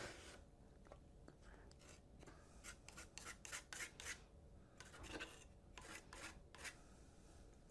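Small spatula scraping and smoothing spackling filler along a seam of a 3D-printed model: a dozen or so short, faint scraping strokes, coming in quick runs after the first couple of seconds.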